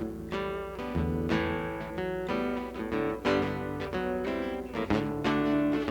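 Acoustic guitar playing a song's instrumental intro, a run of plucked notes and chords.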